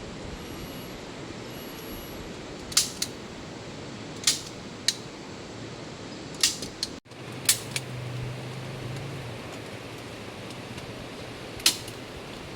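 Steady hiss of rain, with half a dozen sharp, irregular knocks and clicks over it.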